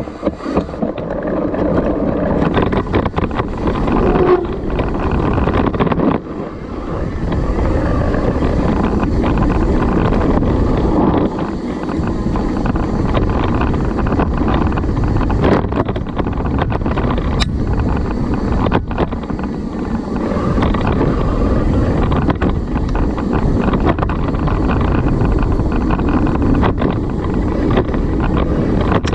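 Wind rushing over the microphone while riding a mountain bike down a dirt trail, with steady tyre roll and frequent small rattles and clacks from the bike.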